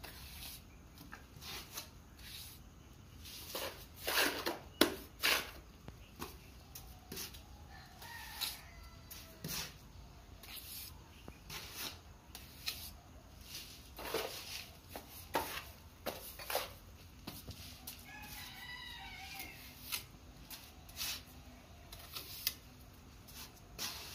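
Steel plastering trowel scraping and tapping as cement mortar is pressed onto and smoothed along the edge of a concrete-block wall, giving scattered sharp clicks, the loudest about four to five seconds in. Chickens call in the background, with a longer crow-like call about three quarters of the way through.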